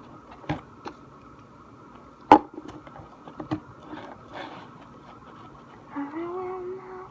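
Scattered clicks and knocks of a utensil against a mixing bowl as slime is stirred, with one sharp knock about two seconds in. A person hums a few notes near the end.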